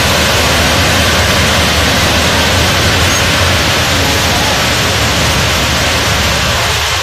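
Crushed-stone ballast pouring out of the bottom chutes of railway hopper wagons onto the track as the train creeps along: a loud, steady rushing hiss, over a steady low rumble from the moving train.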